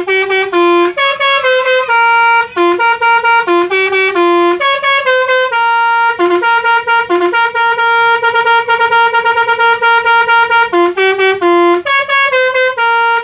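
Basuri V3 musical 'telolet' bus horn playing one of its tunes. It runs through a quick melody of short stepped notes with one long held note in the middle, then cuts off abruptly.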